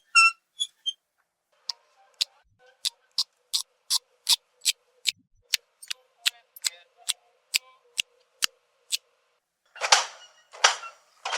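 A regular series of sharp clicks, about three a second, followed near the end by two short hissing rasps.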